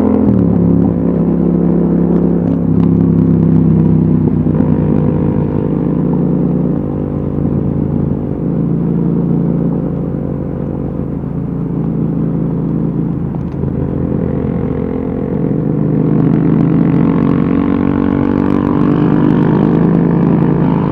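Yamaha XSR700's 689 cc parallel-twin engine running through an Akrapovic exhaust while riding in traffic. The engine note drops at the start as the rider comes off the throttle, runs lower and softer through the middle, then rises again near the end as the bike accelerates.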